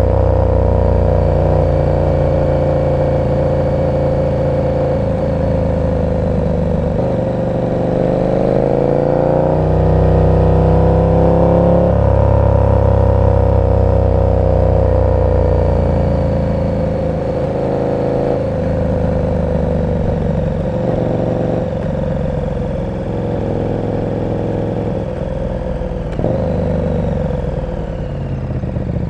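KTM 1290 Super Duke R's V-twin engine running through an aftermarket exhaust while riding in traffic. Its pitch climbs as it accelerates about seven seconds in, holds through the middle, and falls away near the end as the bike eases off.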